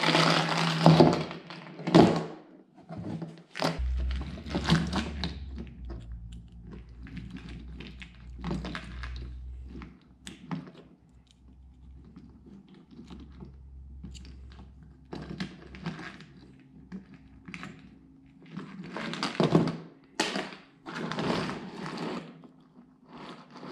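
Light metal chain clattering against a rubber work mat, loudest in the first second or two. It is followed by scattered small clinks and rattles of the chain links as a thin metal pick works them open.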